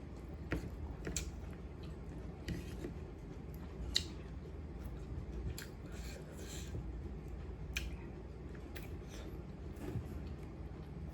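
A person chewing food close to the microphone, with irregular sharp, crisp clicks as the food is bitten and chewed.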